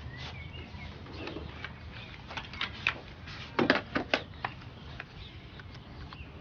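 A run of small, sharp clicks and taps, starting about two seconds in and coming thickest and loudest just past the middle, over a low steady background hum.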